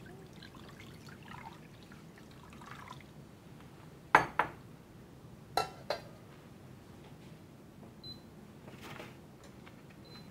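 Kitchenware clinking: two pairs of sharp knocks, about four and five and a half seconds in, the second pair ringing briefly like metal or glass, amid faint handling noises and a short faint hiss near the end.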